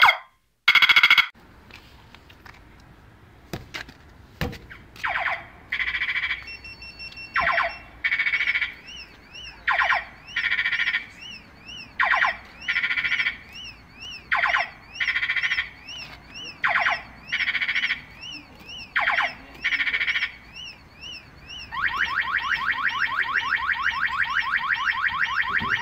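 Homemade PIC12F629 microcontroller car siren playing electronic sound effects. After a short blast and a pause broken by two clicks, it sounds pairs of short buzzy blasts, the first of each pair ending in a falling sweep, repeating about every two seconds with faint chirps between. Near the end it switches to a fast, even pulsing tone.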